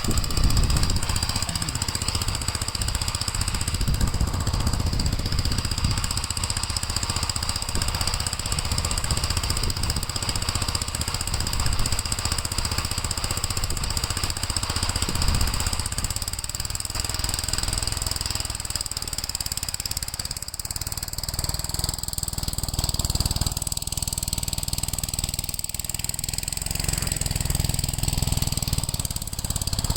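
Gravely L8 walk-behind tractor's engine running steadily while it clears snow, a little quieter from about halfway through.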